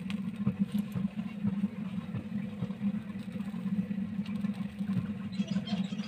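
Steady low mechanical hum, like a running motor, with a few short high chirps near the end.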